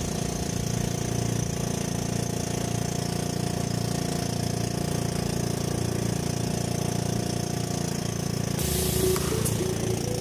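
Small engine of a motorized outrigger boat (bangka) running steadily underway, with a fast, even beat.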